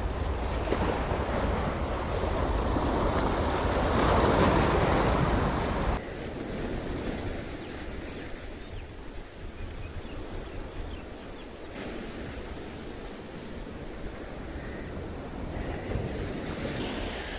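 Sea waves surging and washing against the shore, with wind rumbling on the microphone. A wave swells to its loudest about four seconds in, the sound drops off abruptly at about six seconds, and the surf goes on softer with another small swell near the end.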